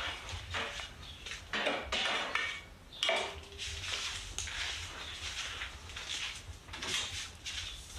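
Metal tools being handled, clinking and clattering in a run of short knocks, with one brief ringing clink about three seconds in.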